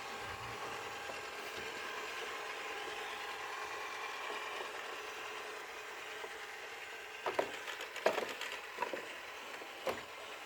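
Xiaomi Mi Robot Vacuum-Mop P running with a steady whine of several tones, an abnormal 'horrible noise'. A few sharp clicks or knocks come in the last three seconds.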